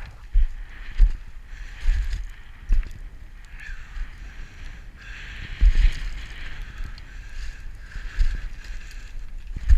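Boots crunching and sliding down loose scree on a steep descent, with stones shifting underfoot and irregular heavy footfalls.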